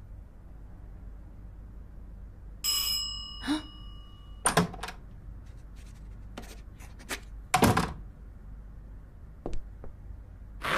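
Cartoon sound effects: a steady low hum, a ringing electronic chime about three seconds in, then a series of thunks and clicks, the loudest about two thirds of the way through.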